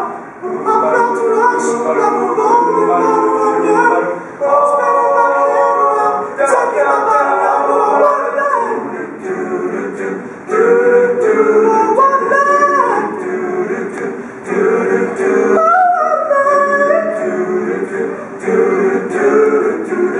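All-male a cappella group of about a dozen young voices singing in harmony, held chords with a higher line moving over them and short breaks between phrases.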